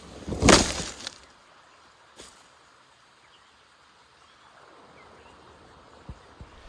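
A camera toppling over, hitting the ground with a loud clatter of under a second, followed by a smaller knock about two seconds in. Steady rush of the creek underneath.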